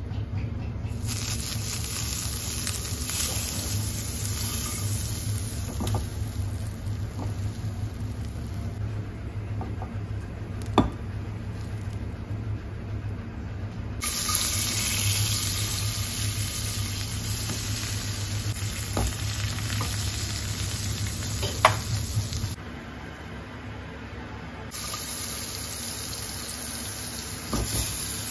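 Butter sizzling and frying in a non-stick pan, the sizzle growing louder about halfway through, over a steady low hum. There are two sharp taps, one before the sizzle grows and one later.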